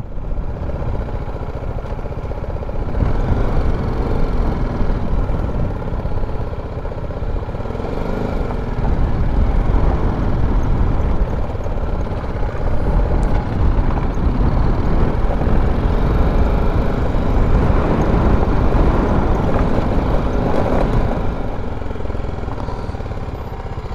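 BMW G310 GS single-cylinder engine running as the motorcycle rides slowly along a dirt road, mixed with wind and road rumble heard from the rider's seat. It gets a little louder about three seconds in.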